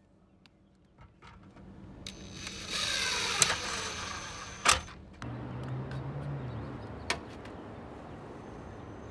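Cordless impact driver driving screws into a wooden post to fasten a metal electrical disconnect box, loud for about three seconds from two seconds in, with sharp clicks. A low hum follows briefly.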